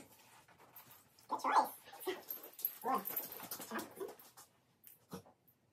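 A dog making three short vocal sounds, about a second apart, with faint clicks and taps between.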